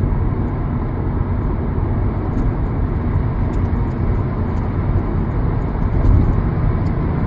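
A car in motion: a steady, unbroken low rumble.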